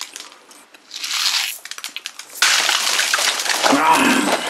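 Plastic candy wrappers and packaging crinkling and crackling as they are handled: a short burst about a second in, then a longer, louder stretch from about halfway.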